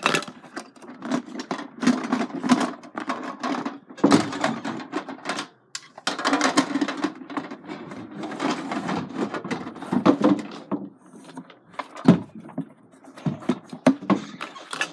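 Rustling and clattering of small objects being handled and put back into a plastic bin, with many quick knocks and bumps throughout.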